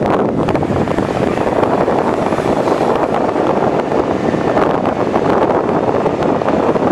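Caterpillar 320D tracked excavator's six-cylinder diesel engine running steadily under hydraulic load as the machine swings and digs its bucket into wet earth.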